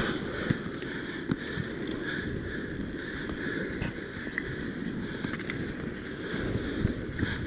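Inline skate wheels rolling on a hard court, a steady rumble, with a few sharp clacks of hockey sticks and puck scattered through it.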